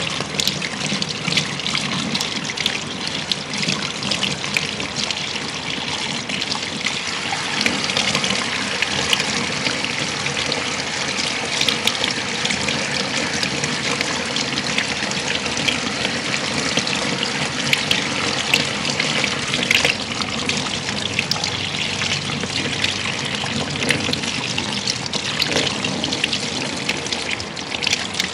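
Handheld shower sprayer running steadily, its water spraying onto wet hair and splashing into a shampoo basin while fingers work through the hair.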